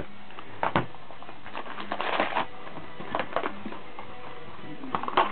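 Plastic shrink-wrap crinkling and rustling in several short bursts as it is pulled off a cardboard booster box, with the box being handled and opened.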